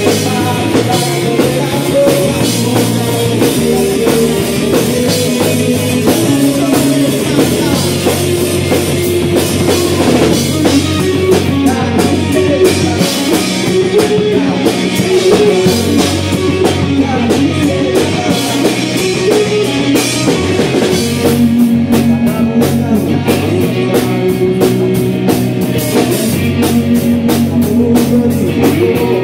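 Live rock band playing: electric guitars, bass guitar and drum kit.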